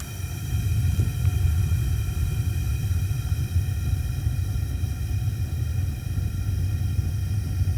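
Propane burner of a backyard foundry furnace firing at about 6 psi: a steady low roar with a faint steady whistling tone over it.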